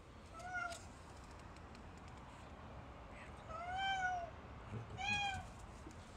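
Domestic cat meowing three times. A short meow comes first, then a long, loud one about four seconds in, and another shortly after; each call rises and falls in pitch.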